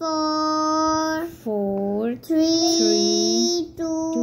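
A voice counting backwards in long, drawn-out, sing-song tones, about four numbers in a row, each held for up to a second or more.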